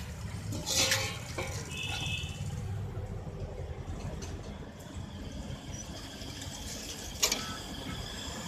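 Steady low rumble of outdoor street background noise, with two short, sharp clatters: the loudest about a second in and another near the end, plus a brief faint ring about two seconds in.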